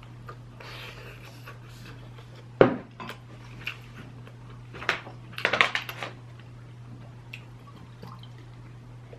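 Close-up eating sounds over a steady low hum: a soft slurp from a spoonful of stew about a second in, a single sharp knock of dishware about two and a half seconds in, and a short burst of crackling around five and a half seconds.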